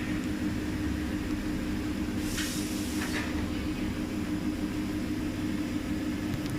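Steady hum of a high-frequency TPU welding and cutting machine running, with two short hisses about two and a half and three seconds in.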